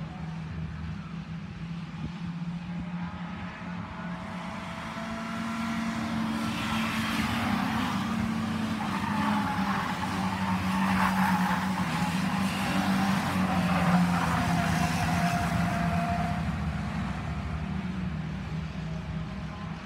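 Several stock car engines running as the cars race past close by, growing louder toward the middle and easing off toward the end, over a steady engine drone.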